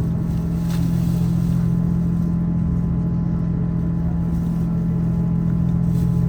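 Interior of a KiHa 283 series diesel multiple unit on the move: a steady low diesel engine drone over running rumble, with a faint click about a second in.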